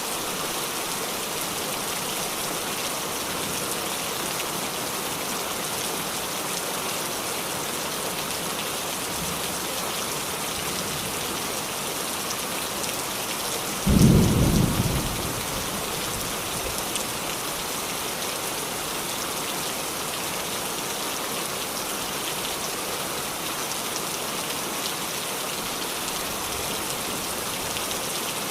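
Heavy rain falling in a steady, even hiss. About halfway through comes a single sudden, loud clap of thunder, deep and low, that dies away over a second or two.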